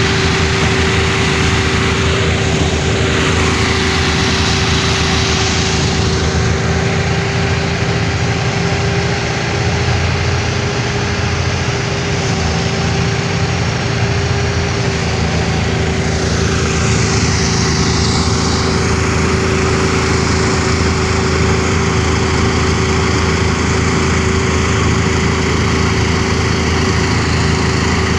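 Small engine driving a homemade paddy thresher, running steadily at speed.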